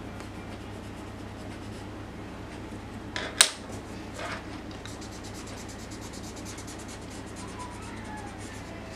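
A paper blending stump rubbing graphite into drawing paper in short repeated strokes, over a steady low hum. About a third of the way in there is one sharp, loud click as a pencil is set down on the wooden desk.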